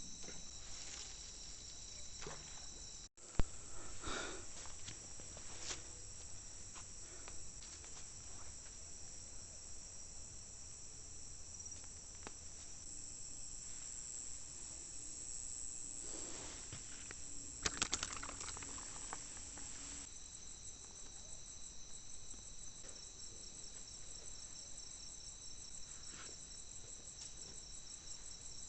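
A steady chorus of insects shrilling on several high pitches, cricket-like. A sharp knock sounds about three seconds in, and a few quick clicks come a little past the middle.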